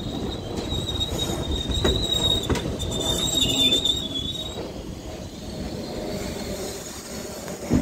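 R68 subway train running into a station and slowing, with a high steady squeal through the first half and a few clicks of the wheels over rail joints. The running noise fades as it draws to a stop, and there is one short knock near the end.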